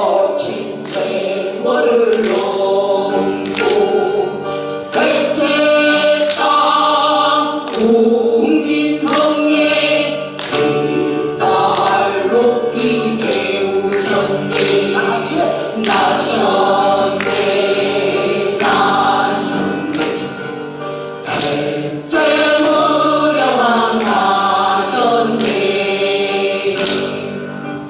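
Group of voices singing a Korean folk song (minyo), with drum strokes keeping a regular beat.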